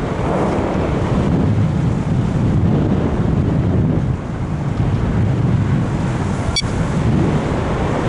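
Airflow buffeting the microphone of a Sony HDR-AS15 action camera riding on a Bird of Time RC sailplane in gliding flight: a steady, loud rush of wind noise, with one short click late on.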